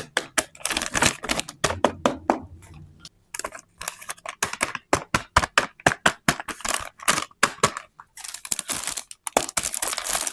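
Rapid sharp clicks and taps of small plastic toy pieces and packaging being handled, several a second, with a stretch of rustling about eight seconds in.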